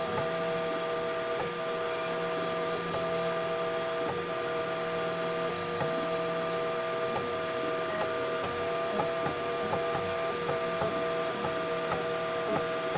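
3D printer at work, its stepper motors whining in steady tones that jump to a new pitch every second or so as the moves change, with small clicks at the changes and a steady hum underneath.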